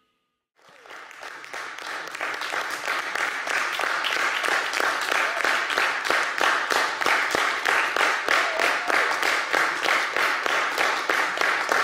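Audience applauding, fading in about half a second in and growing over the next second or two, then holding steady.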